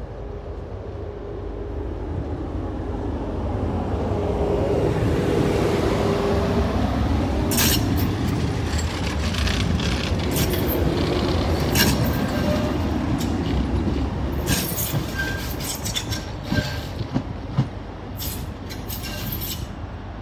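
Class 399 Citylink tram-train running past on the tramway. Its rumble builds as it comes close, with a brief steady whine. From about seven seconds in, many sharp wheel clicks and short squeals come off the rails and points.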